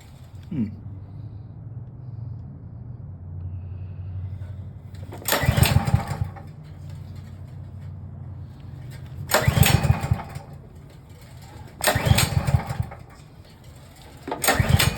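Hart 3600-watt gas generator being pull-started: four tugs on the recoil starter, each turning the engine over for about a second without it catching. Just after the start, a falling whine as the engine spins down from the pull before.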